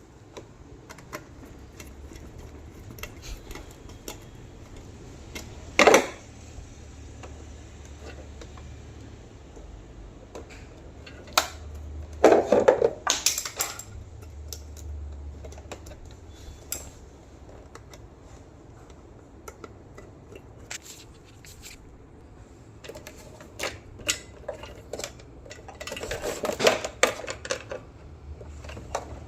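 Scattered clicks, taps and clatter of small hard tools and parts being handled during the repair, over a low steady hum. There is a sharp knock about six seconds in, a run of clatter a little before halfway, and another near the end.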